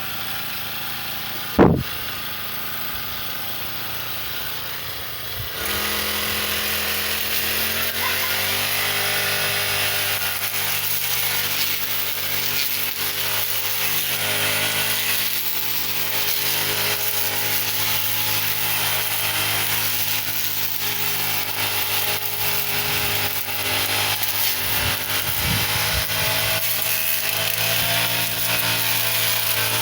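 A brush cutter's small engine idles, then about five seconds in it speeds up and runs steadily at high revs, with slight rises and dips in pitch. About a second and a half in there is a brief, loud, falling swish.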